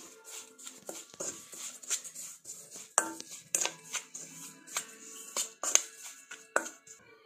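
Steel spoon clinking and scraping against a stainless steel bowl as a dry spice mix is stirred, in irregular sharp clinks, over background music.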